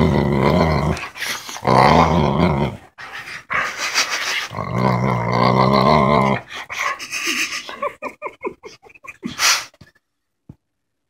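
Boxer puppy growling playfully while nibbling on a person's ear: several long, low growls, then shorter choppy grumbles that die away about nine seconds in.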